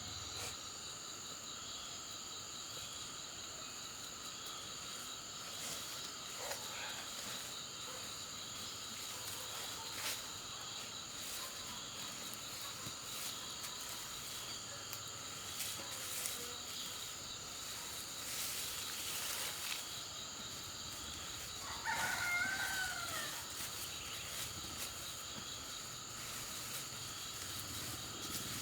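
Steady outdoor chorus of insects shrilling in the background, with a rooster crowing once about three-quarters of the way through.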